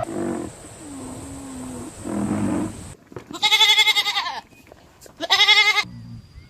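A goat bleating twice, two loud quavering bleats about a second apart, after a few quieter low calls in the first half.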